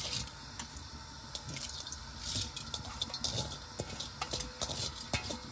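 Salted water with cumin seeds boiling hard in a large steel pot: steady bubbling with small pops, and two brief louder hissing splashes about two and a half and five seconds in.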